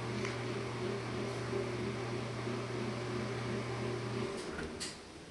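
Steady low mechanical hum of a household appliance running, which cuts off abruptly about four seconds in and is followed by a single sharp click.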